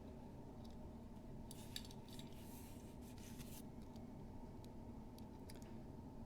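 Faint clicks and a short stretch of light rubbing, small objects being handled, over a steady low background hum.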